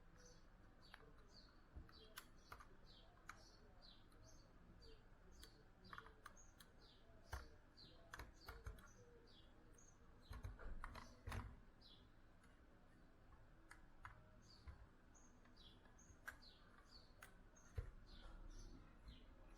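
Faint small-bird chirping: short falling chirps, several a second throughout, with scattered light clicks and knocks, the loudest cluster about halfway through.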